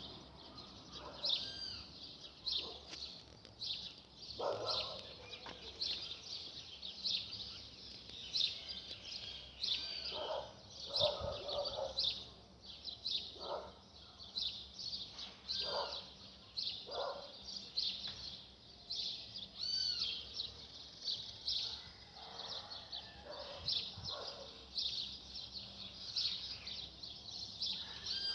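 Several birds singing and chirping together: a steady stream of short, high chirps, with now and then a lower, fuller call rising above them.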